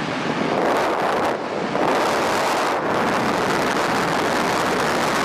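Loud rush of slipstream air blowing in through the open cockpit window of a Cessna 150 in flight, swelling and easing a couple of times.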